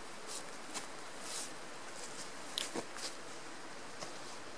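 Quiet outdoor background hiss with a handful of brief, soft rustles and clicks scattered through it.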